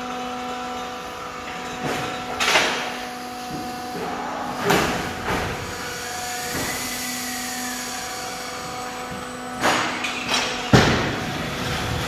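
Automatic hydraulic fly ash brick press plant running: a steady hum of motors with several fixed tones, broken by loud knocks and rushing bursts as the press and pallet feed cycle, in groups about two, five and ten seconds in.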